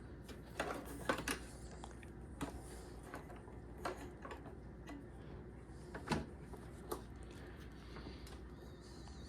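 A handful of scattered light clicks and knocks, the loudest about a second in and about six seconds in, over a faint steady hum.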